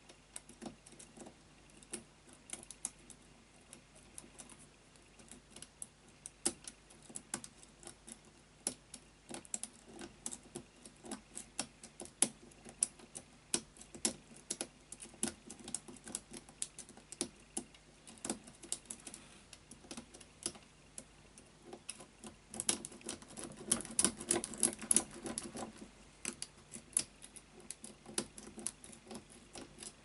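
Hook pick and tension wrench working the pins inside an Avocet padlock: a run of small, sharp metal clicks and scrapes, growing denser and louder about twenty-two seconds in.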